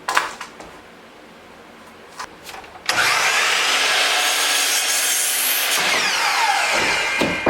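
A few sharp knocks, then a wood planer starts about three seconds in, runs loudly for about three seconds, and is switched off, its motor winding down with a falling whine.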